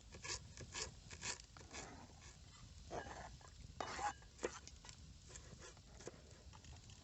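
Knife chopping fresh herbs and onion: faint, irregular cuts and taps, a few louder ones about four seconds in.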